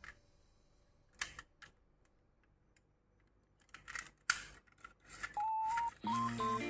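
A few scattered sharp clicks and taps over a quiet room. Near the end come a short steady electronic beep tone and then background music with several notes at once.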